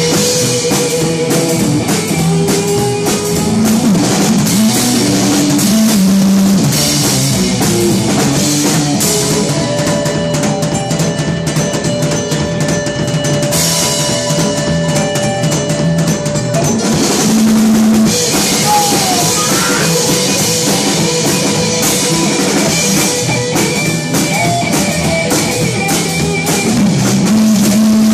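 Rock band playing live, an instrumental passage: a drum kit with bass drum keeping a steady beat under long held instrument notes, with no singing.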